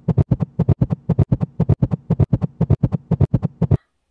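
A human heartbeat heard through a stethoscope's chestpiece: rapid, even thumps at about six a second, starting suddenly and cutting off near the end. The speed fits a long listening session played back fast.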